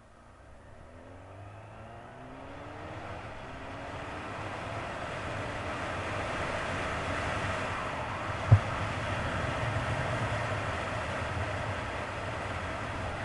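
1999 Kawasaki ZX-9R's inline-four engine pulling away from a stop, its pitch rising, then buried under wind and road noise that grows with speed. A single sharp knock about eight and a half seconds in is the loudest sound.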